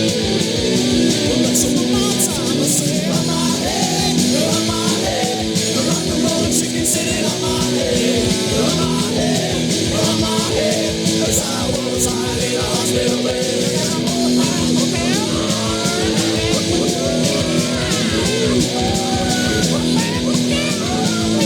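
Loud punk rock song with distorted electric guitars, drums and a sung vocal line.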